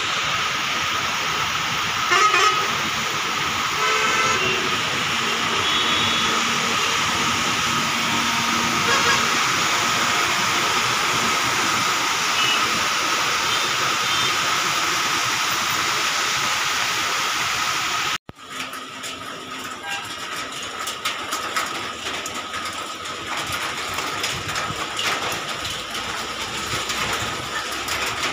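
Steady rain with traffic driving on a wet road, and vehicle horns honking a few times in the first several seconds. The sound cuts out for a moment about two-thirds of the way through, then the rain goes on with a sharper patter of drops.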